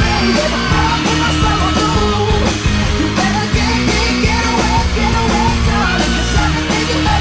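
Loud up-tempo music with sung vocals over a steady beat: the backing mix for a cheerleading routine.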